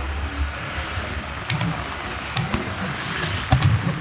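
Steady outdoor hubbub with wind rumbling on the microphone, broken by a few faint sharp pops.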